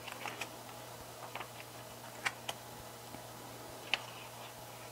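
Glossy pages of a photobook being turned by hand: a short paper rustle at the start, then a few sharp, light paper clicks and taps spread through the rest, over a faint steady hum.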